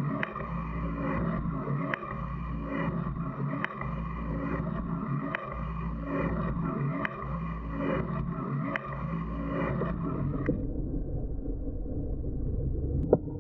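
Metal shaper running, its ram stroking back and forth to take roughing cuts, with a motor hum and a sharp tick about every second and a half to two seconds, once per stroke. A little past ten seconds in, the sound turns duller.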